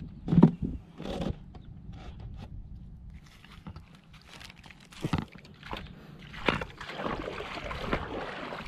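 Scattered knocks, scuffs and rustles of fishing gear being handled and moved about on a concrete seawall, over a low wind rumble on the microphone.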